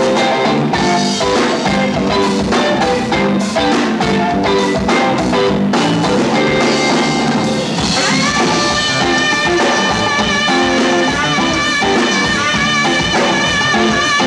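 A live funk rock band plays electric guitar and bass over a drum kit. About halfway through, a saxophone comes in with long, wavering held notes.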